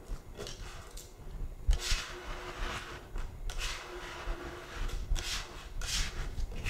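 Plastic card scraping across a wet protective film on a setting board in a series of short squeegee strokes, about one a second, pushing water out from under the film.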